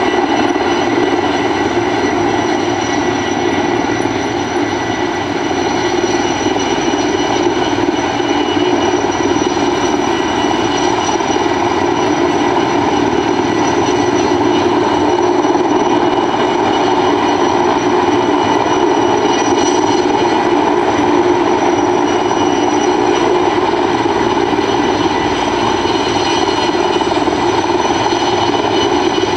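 Sikorsky S-64 Skycrane helicopter hovering: its rotor gives a steady, loud drone, and its twin turbine engines add a high, steady whine.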